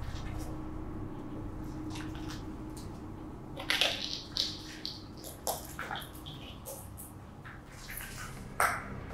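Footsteps crunching on broken glass and rubble: irregular crunches begin a few seconds in, the loudest one near the end, over a steady low hum.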